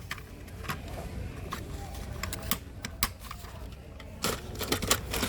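Scattered light clicks and taps, about seven of them, several bunched near the end, over a low steady store background.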